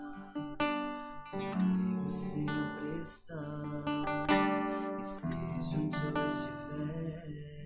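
Strummed acoustic guitar music, the instrumental passage of a Portuguese-language Catholic hymn to Mary, with steady chord strokes.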